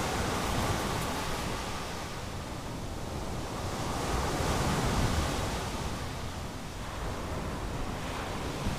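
Ocean surf breaking and washing up a coarse pebble beach, swelling louder about four to five seconds in.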